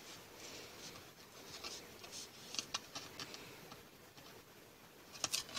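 Thick cardboard pages of a board book being turned by hand: faint rubbing with light clicks, and a few sharper taps near the end.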